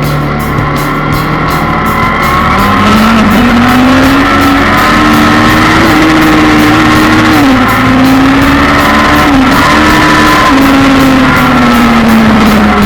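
Inline-four sport motorcycle engine running at high revs over rock music. Its note climbs about two seconds in, holds high with a couple of short dips, and falls away near the end.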